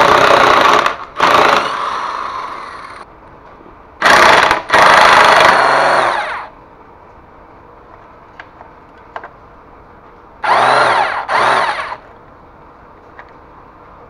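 Handheld electric power tool driving a socket on a bolt, run in about six short bursts, several winding down after each trigger release, while loosening fasteners to strip the motorcycle.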